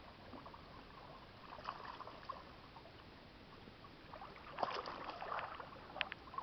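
Faint water splashing and trickling around a small fishing boat, with a few sharp knocks and splashes, the loudest cluster about two thirds of the way through.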